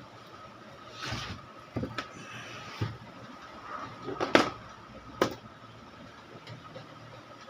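Irregular knocks, clicks and rustles from handling an amplifier on a workbench, the loudest knock about halfway through, over a faint steady high-pitched tone.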